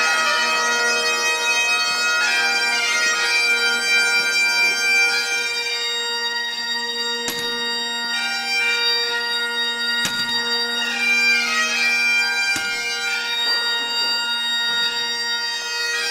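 Bagpipes playing a slow melody over their steady drones, the tune decorated with quick grace notes.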